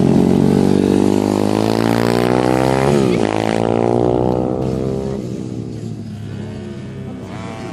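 Pit bike's small single-cylinder engine accelerating with rising pitch, a quick gear change about three seconds in, then revving up again before fading away.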